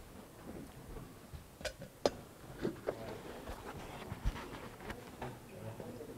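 Scattered light clicks and knocks of handling and moving about in a small room, with a dull bump about four seconds in, as a man steps away from a pulpit and puts on a plastic face shield.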